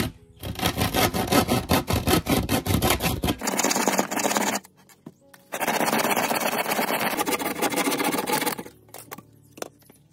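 A wooden plank being sawn by hand: rough, rasping strokes in two long runs, breaking off for about a second near the middle and stopping a little before the end. Faint background music runs underneath.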